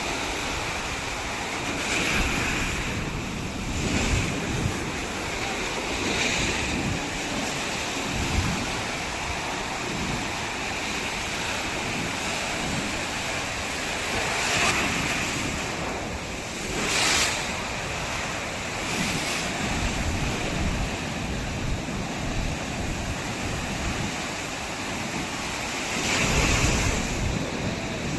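Ocean surf washing and breaking on a beach in repeated swells, with wind buffeting the microphone.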